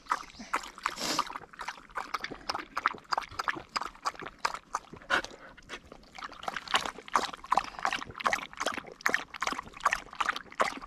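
A dog lapping water from a bowl or bottle, a quick steady run of wet laps several times a second.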